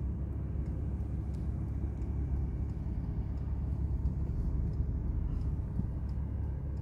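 Steady low rumble of a car heard from inside the cabin while driving: engine and road noise.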